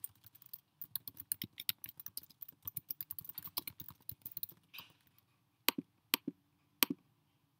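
Typing on a computer keyboard: a quick run of keystrokes, then three separate, louder clicks about half a second apart near the end.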